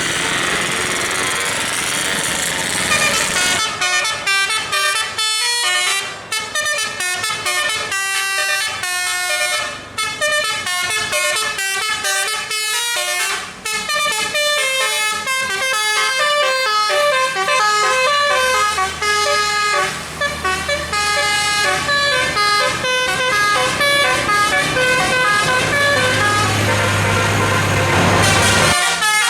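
A bus's 'telolet' musical air horn playing a rapid multi-note tune, the notes changing several times a second, starting a few seconds in and running with a few short breaks.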